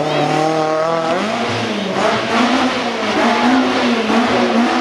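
Citroën Saxo rally car's engine revving hard, its pitch rising and falling through the first second or so, then running on under a rougher, noisier rush as the car leaves the road into the bushes.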